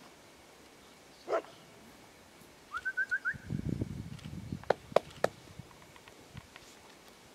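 A single dog bark about a second in, then a quick run of five short high chirps. Next comes a low rumble, and near the end three sharp clicks.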